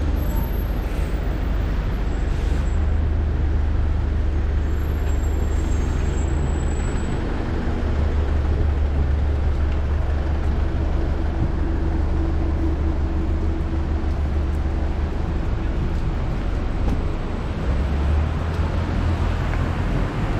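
Steady city street traffic rumble, with vehicle engines running close by and a faint steady hum near the middle.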